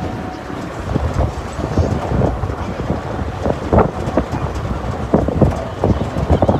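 Car on the move, heard from inside the cabin: a steady road and engine rumble, with irregular knocks and thumps and wind buffeting on the microphone.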